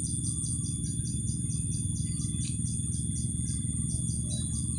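Rhythmic high-pitched chirping, several pulses a second, with steady high trilling from swamp insects and birds, over a steady low drone.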